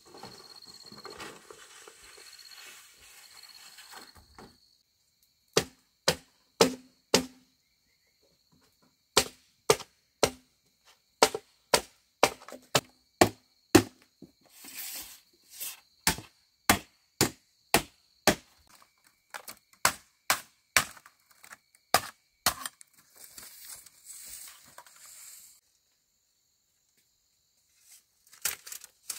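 Chopping: a run of sharp strikes, about two a second in bursts of several with short pauses, some with a brief low ring. Softer rustling comes before the strikes and again near the end.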